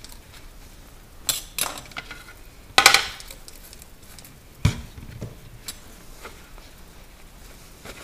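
Trigger spray bottle giving a few short hissing squirts, the loudest about three seconds in, followed by a knock and a few light clicks of hard plastic refrigerator parts being handled.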